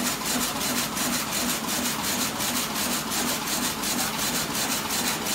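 Tongda TD-798 heavy jute rapier loom running at speed: a steady, rapid mechanical clatter from the weaving cycle, beating about three times a second.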